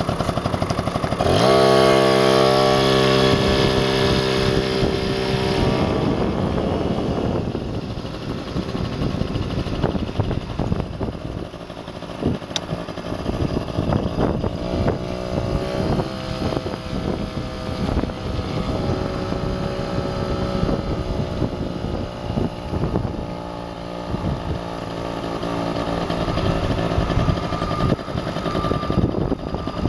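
A motor vehicle's engine picks up speed about a second in, holds a steady pitch for several seconds, then eases off around six seconds and keeps running more quietly, over constant road and wind rumble with small knocks.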